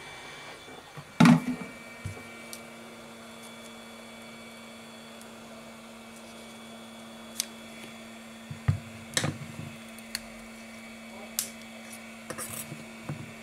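Hot-air gun blowing steadily at first; about a second in a loud knock as it is set down, followed by a steady hum. Later come scattered light clicks and taps of a small screwdriver working at the phone's edge.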